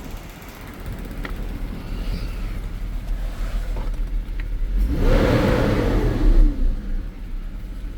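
1999 BMW 528i's straight-six engine running, revved up around the middle and falling back toward idle near the end; it now starts and runs, its no-start cured after a new fuel pump, injectors and coils and an immobiliser (EWS) bypass.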